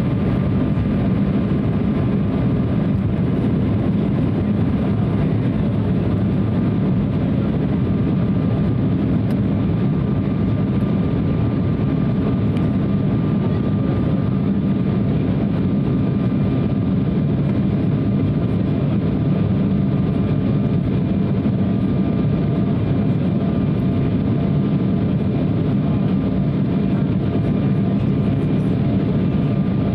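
Inside the cabin of an Embraer 175 at takeoff power: its two GE CF34-8E turbofan engines run with a steady, heavy rumble and a few thin steady whining tones above it, as the jet leaves the runway and climbs.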